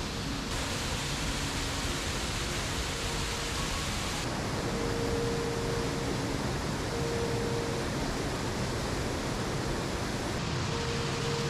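Brook waterfall cascade: a steady white-noise hiss of rushing, falling water, its tone shifting abruptly a few times.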